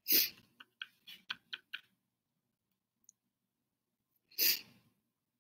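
A woman sneezing twice, once near the start and again about four seconds later, with a quick run of short breaths in between.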